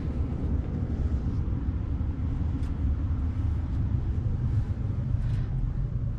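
A steady low rumble with a few faint light ticks over it.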